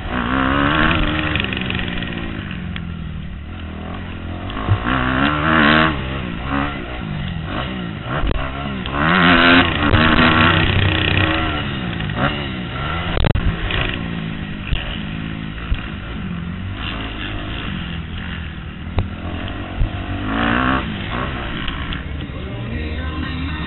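Kawasaki KX250F four-stroke single-cylinder motocross engine heard from on board, revving hard and repeatedly climbing and dropping in pitch as the bike accelerates, shifts and backs off around the track. There are a few sharp knocks about halfway through.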